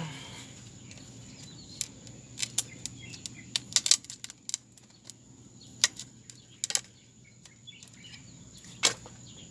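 Sharp, irregular clicks and knocks, a dozen or so over several seconds, as a mud crab is wrestled out of its hole among rocks.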